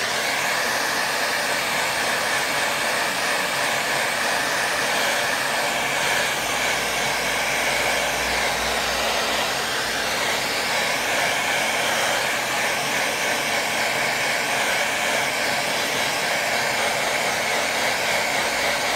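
Hair dryer switched on and blowing steadily over wet watercolour paper to dry the paint.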